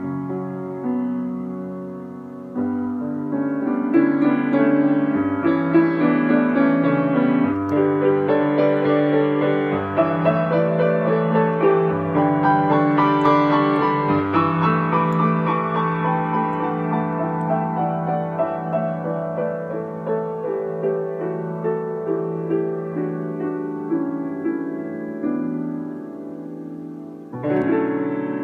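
Solo piano playing a melodic theme over chords, with a loud new chord struck near the end.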